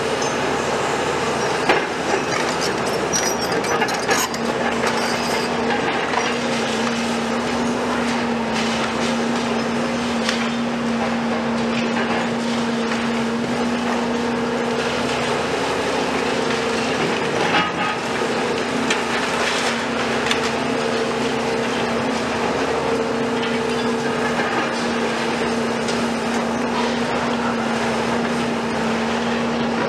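Diesel excavator engine running with a steady hum while a Volvo EC250 works its arm through broken concrete rubble, with scattered knocks and scrapes of concrete a few times.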